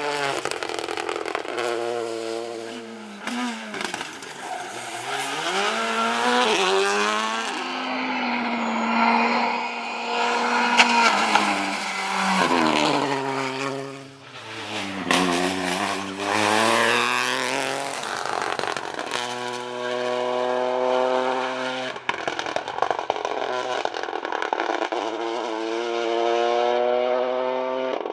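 Rally cars at speed on a stage, one after another. Their engines rev hard, climbing and dropping with each gear change and lift, with a few sharp cracks from the exhaust.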